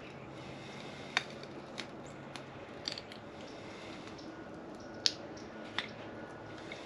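Buffalo chicken and cream cheese filling squeezed from a plastic piping bag into a dry manicotti shell: soft squishing, with about six short, sharp clicks and crackles spread through it.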